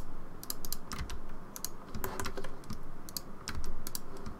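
Computer keyboard keys clacking in short, irregular clusters as shortcuts are pressed, mixed with mouse clicks.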